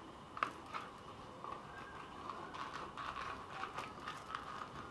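Leather belt being handled and pulled through jeans belt loops and a leather belt holster: a soft rubbing, scraping sound with scattered light clicks and taps.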